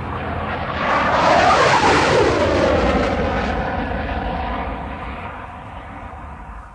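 Aircraft flying past: the engine sound builds, is loudest about one to three seconds in with its pitch dropping as it passes, then fades away.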